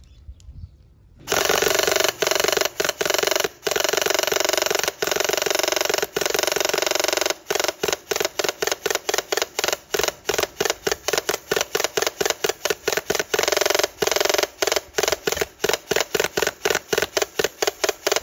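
Airsoft electric gun firing full-auto at close range, a dense continuous rattle of rapid shots. It starts about a second in with long bursts, then from about seven seconds in it breaks into quick short bursts, about three a second.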